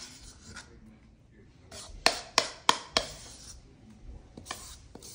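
A metal spoon clinks: four quick sharp taps about two seconds in and two fainter ones near the end, as grated Pecorino Romano is spooned out of a ceramic bowl into a pan of spaghetti.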